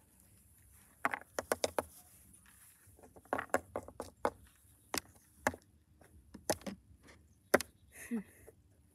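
Small plastic toy cat figurines tapped and walked along a weathered wooden board: a series of light, sharp clicks, a quick cluster about a second in and another around three and a half seconds, then single taps about a second apart.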